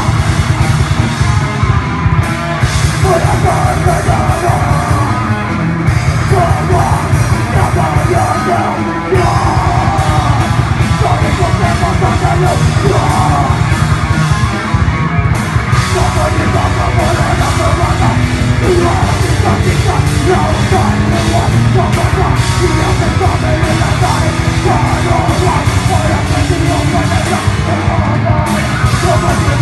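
Extreme metal band playing live: distorted electric guitars and a pounding drum kit, with harsh shouted vocals over them.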